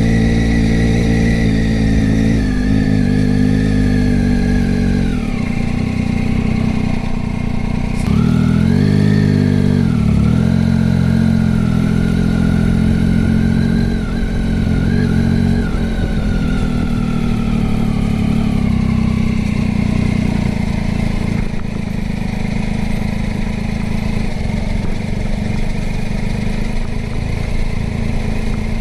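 Motorcycle engine running while riding. The engine note drops about five seconds in, rises again around eight to nine seconds, and falls slowly in the middle of the stretch as the rider changes speed.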